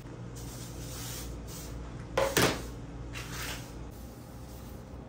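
Disinfecting wipe rustling as it is pulled from its soft pack and rubbed over a wooden cabinet front, in short bursts. A sharp double knock about two seconds in.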